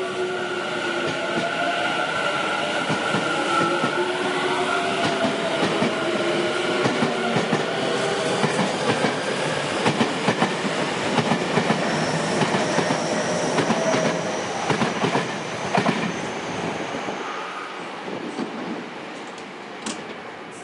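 Tobu 50090-series electric train pulling into a station: the electric motor whine glides in pitch over the first few seconds, then the wheels clack over rail joints in a run of sharp knocks, with a thin high whine for a few seconds midway, and the sound fades away near the end as the train slows.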